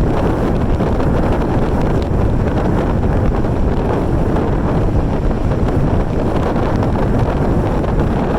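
Strong storm wind buffeting the microphone in a loud, steady low rumble, over the wash of storm waves breaking on a lake beach.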